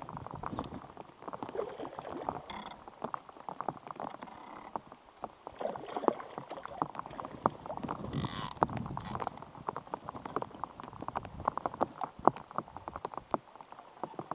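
Rain falling, with many irregular sharp raindrop taps close by. A short hiss about eight seconds in comes as the fly line goes out on a cast.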